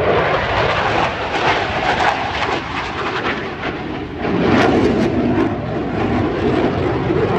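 Eurofighter Typhoon's twin EJ200 turbofans heard from the ground as a fighter jet flies overhead: a loud rushing jet noise full of crackle, getting louder and deeper about four seconds in.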